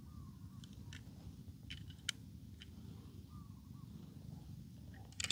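Faint clicks and taps of a die-cast toy car being handled, over a low steady rumble of outdoor background; the sharpest click comes about two seconds in and a few more near the end.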